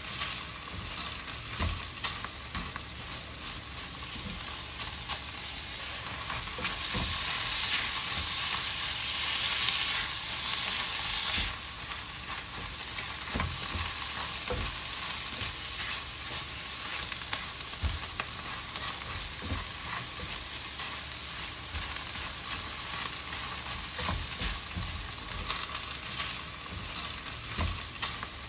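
Food frying in hot oil in a pan: a steady sizzle with small crackles and pops, swelling louder for a few seconds about a quarter of the way in.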